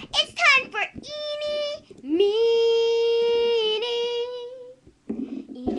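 A child's high voice singing without words: a few short high notes, then one long note that slides up and holds steady for about two and a half seconds, followed by a rougher vocal sound near the end.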